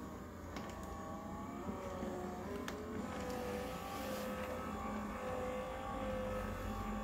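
Electric motor of a seated leg exerciser machine running, its whine rising in pitch over the first couple of seconds and then holding steady.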